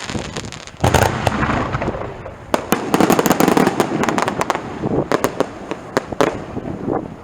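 Aerial fireworks going off: a heavy burst about a second in, then a rapid run of sharp cracks and pops that thins out near the end.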